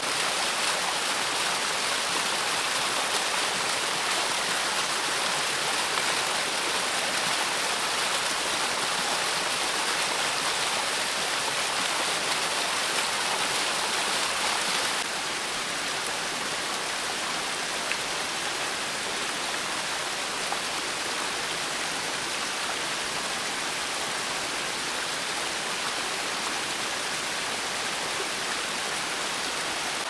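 Mountain stream water falling and splashing over rocks into a pool, a steady rush with no breaks. About halfway through the rush drops a little in level and tone as the view changes to another small fall.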